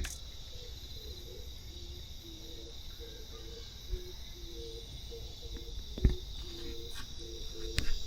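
Insects shrilling steadily, with a run of short, low call notes alternating between two pitches and a low rumble underneath. There are two brief clicks, one about six seconds in and one near the end.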